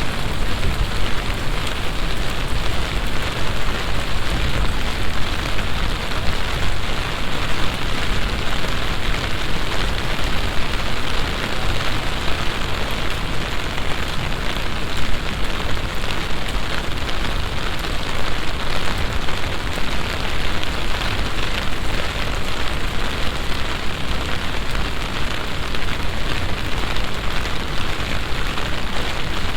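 Heavy summer rain shower falling steadily, an even, dense hiss of rain.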